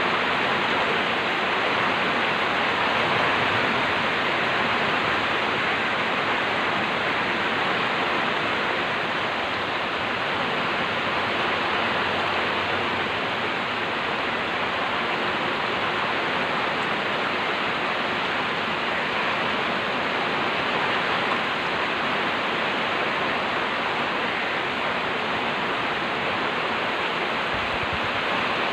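Heavy rain pouring down in strong wind, a dense, steady hiss with no let-up.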